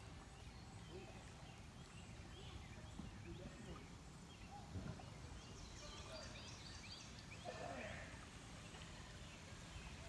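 Faint creek ambience: a low steady background with scattered soft chirps and small water plinks.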